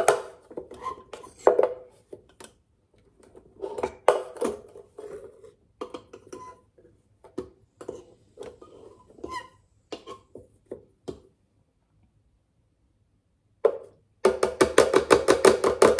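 A metal spoon stirring thick, half-ground peanuts in a plastic blender jar, knocking and scraping against the jar's sides in irregular strokes. After a short pause, it finishes with a fast, even run of strokes, about a dozen a second.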